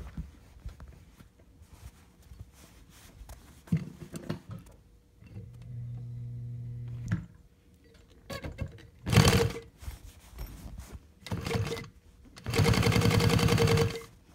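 Electric sewing machine stitching fabric: a few short bursts of stitching, then a steady run of fast stitching for about a second and a half near the end, the loudest part. Light clicks and a brief low motor hum come between the bursts.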